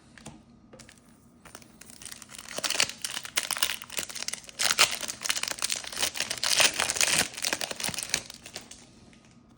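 Trading card pack wrapper being torn open and crinkled, a dense run of crackling and crumpling that starts about a second and a half in and dies away near the end.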